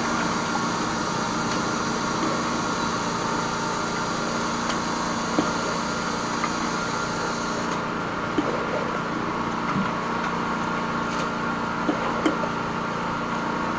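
High-pressure drain jetter running steadily, its hose and turbo drill nozzle working through a blocked rainwater downpipe: a steady mechanical drone with a few light knocks. The high hiss drops away about eight seconds in.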